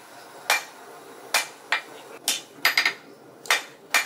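Hand hammer striking a hot 3/8-inch steel bar over the anvil's edge: about nine ringing blows at an uneven pace, with a quick cluster of three near the middle. The bar is being hit half on, half off the edge and turned 90 degrees between blows to forge an isolation.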